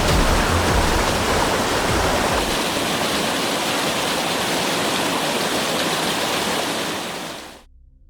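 A steady, loud rush of water, with a low rumble under it for the first two and a half seconds, fading out quickly about seven and a half seconds in.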